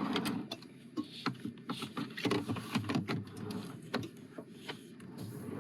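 Handling and rummaging noises: an irregular run of small clicks, knocks and rustles as objects are moved about.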